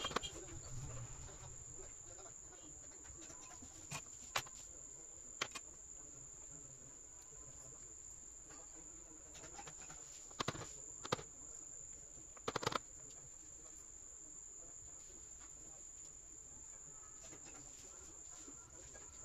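Quiet workbench sounds during micro-soldering of jumper wires on a phone's charging-port tracks: a handful of sharp, small clicks of tools on the board. A steady high-pitched tone runs underneath.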